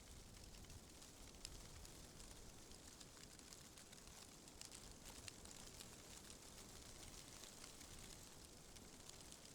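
Faint rustling of tree leaves in the wind: a soft, steady hiss sprinkled with fine crackling ticks, over a low rumble of wind.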